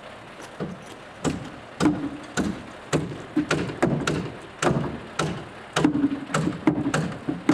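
Nailing into a timber-framed wall: a run of sharp knocks, roughly two a second and somewhat irregular, some followed by a brief low ring from the wall.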